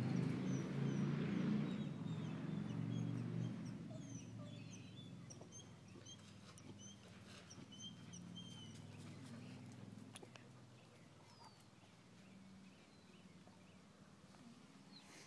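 Birds chirping: many short, high chirps in quick runs from about two seconds in until about ten seconds in, over a low rumble that is loudest at the start and fades.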